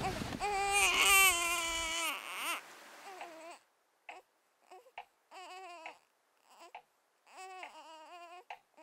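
Infant crying: a loud, wavering wail for the first two and a half seconds or so, then fainter, broken cries with short gaps between them.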